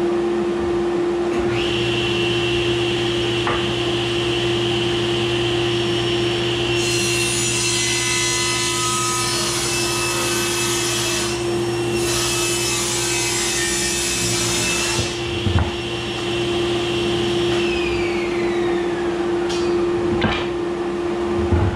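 Table saw running steadily while its blade, tilted for a slight back bevel, cuts through a solid red oak stair tread. The cut runs from about a third of the way in to about two-thirds, with a short break in the middle; the saw keeps running after it.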